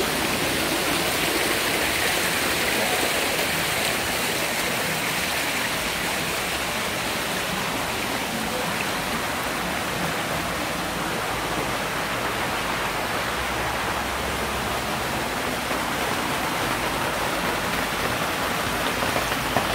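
Steady rush and splash of flowing water in hot spring pools, with a small cascade pouring into a pool.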